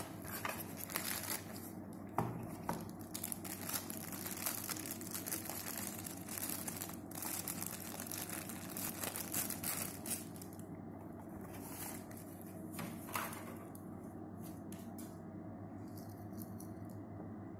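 Packaging rustling and crinkling as a small circuit board is unwrapped by hand from its foam sheet and clear plastic bag. The crackling is dense for the first ten seconds or so, then thins out and gets quieter.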